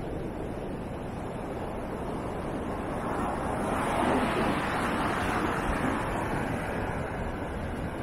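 Ocean surf breaking on a beach, a wave swelling louder about four seconds in and then washing back down, over a steady low rumble of wind on the microphone.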